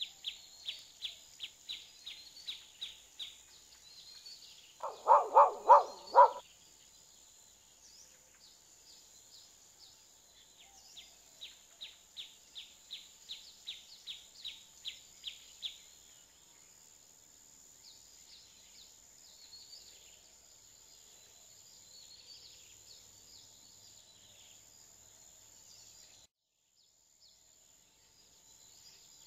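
Nature soundtrack: a bird calling in quick runs of short high chirps, about four a second, over a steady high insect-like whine. About five seconds in comes a brief, louder run of four lower pulsed animal calls.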